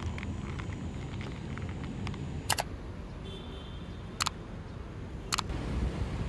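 Camera shutter clicks, sharp and single, three or four of them from about two and a half seconds in, over a low steady rumble of city traffic ambience.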